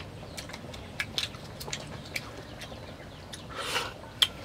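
Eating boiled snails: scattered light clicks of snail shells and a metal fork, with a short sucking sound about three and a half seconds in as a shell is put to the mouth, and one sharp click near the end.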